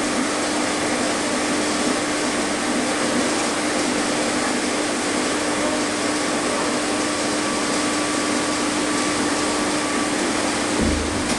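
Large belt-driven machine with a big electric motor running steadily: a dense, even rush with a constant hum under it and a faint higher whine that fades out about ten seconds in. A short low thump near the end.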